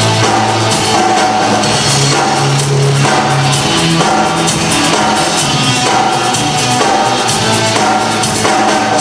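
Rock music played by a band: a drum kit keeping a steady beat under a bass line that changes note about once a second.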